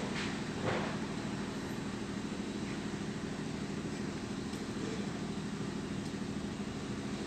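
Steady drone of an engine running, with a brief rustle a little under a second in.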